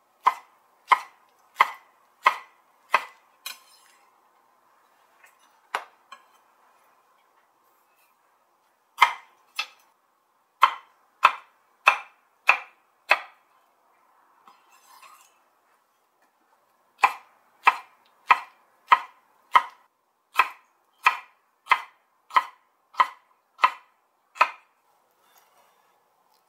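Kitchen knife cutting pineapple on a wooden cutting board: sharp knocks of the blade striking the board, about one and a half a second, in three runs with pauses between.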